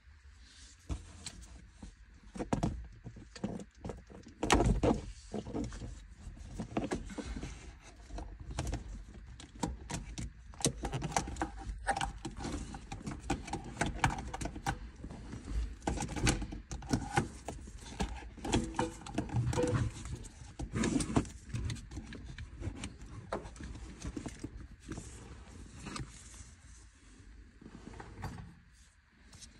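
Irregular clicks, knocks and rattles of hands working on the gear-change cables and plastic trim under a van's dashboard, with the loudest knock about four seconds in.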